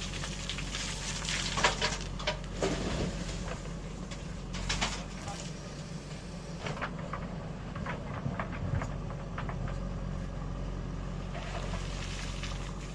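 Diesel engine of an earthmoving machine running steadily at a low hum, with scattered sharp knocks and clatter over it.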